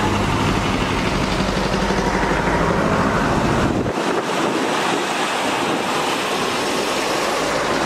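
A heavy diesel engine runs with a steady low hum under a loud, even rushing noise. The engine hum drops away about four seconds in, and the rushing noise carries on.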